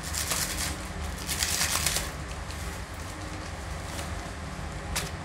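Rustling in two short spells as something small is handled in the hands, with a single click near the end, over the steady low rush of a lit gas stove burner.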